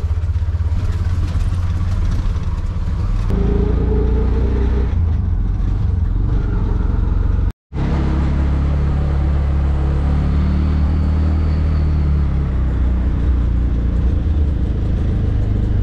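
Auto-rickshaw (tuk-tuk) engine running steadily as it drives along a town street, heard from inside the open-sided passenger cabin. The engine note shifts about three seconds in, and the sound cuts out for a moment a little past the middle.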